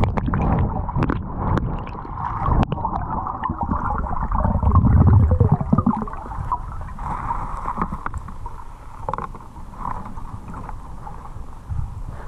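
Muffled underwater water noise heard through a camera's waterproof housing: a steady rushing hiss with low gurgling rumbles and a few sharp knocks in the first three seconds, swelling loudest about five seconds in.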